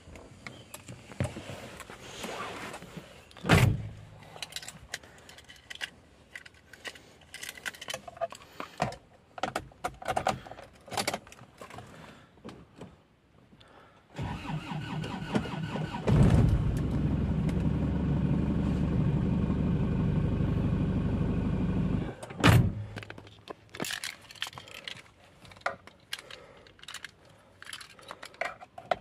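Isuzu Panther diesel engine on a long starting attempt: the starter turns it over, the sound grows louder after about two seconds, holds steady for about six seconds, then stops abruptly. The hard starting is taken by the owner as a sign of air being drawn into the diesel fuel lines past loose hose clamps. Before it, scattered clicks and knocks of handling in the cabin, with a loud thump a few seconds in and another just after the engine stops.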